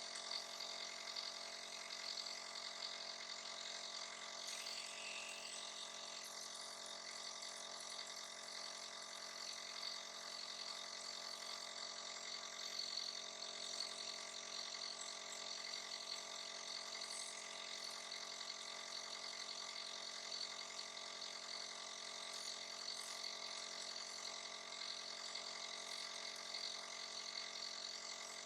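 A small motor humming steadily with an even hiss over it.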